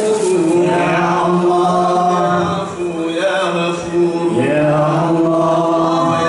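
Male voices chanting a drawn-out devotional chant, holding long notes that slide from one pitch to the next.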